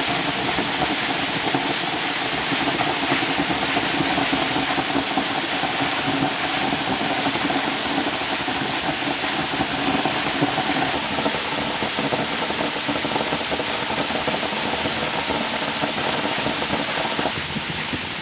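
An insulation blowing machine runs, pushing loose chopped wheat straw through a hose into a wall cavity: a steady rush of air and fibre over a humming blower. The hum cuts out near the end.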